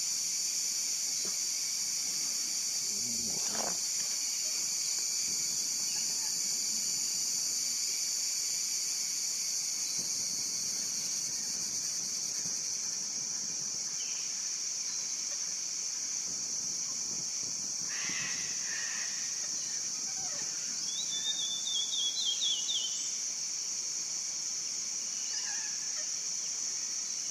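Steady, high-pitched drone of a chorus of insects, with a few faint bird calls over it, including a short run of quick notes about three quarters of the way through.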